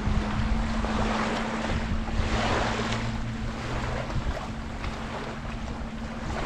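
Colorado River water washing and lapping in uneven swells, with wind buffeting the microphone. A steady low motor hum runs underneath, joined by a second lower tone for a couple of seconds in the middle.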